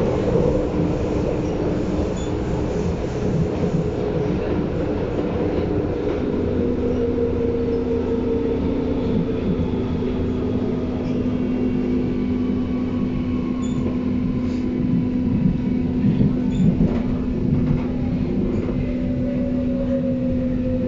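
Berlin U-Bahn train running between stations, heard from inside the car: a steady rumble of wheels on track under a motor hum whose pitch steps down about six seconds in. In the second half, falling whines from the drive, the clearest near the end.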